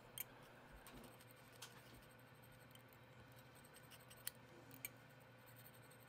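Near silence, with a few faint scrapes and ticks of a flat scalpel blade on the metal tab of a linear voltage regulator as old heat-baked glue is scraped off.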